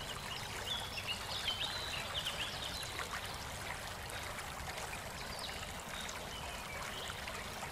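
Forest ambience: a stream trickling steadily, with small birds chirping and whistling now and then, most often in the first few seconds.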